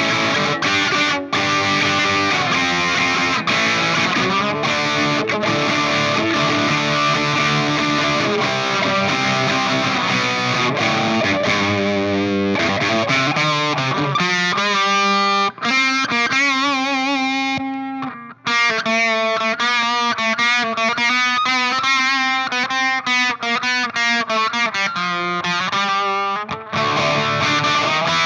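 Electric guitar played through distortion and effects: dense, distorted chords for about the first half, then sustained notes that waver in pitch, with a brief break about two-thirds of the way in.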